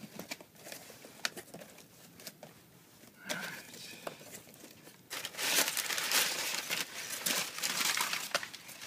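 Packing paper being handled and crumpled: scattered light rustles and clicks, then about three seconds of loud, continuous crinkling from about five seconds in.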